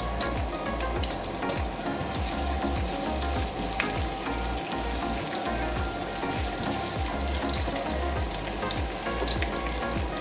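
Sliced shallots and aromatics frying in hot oil in a pan, a steady sizzle of many small crackles, stirred with a spatula.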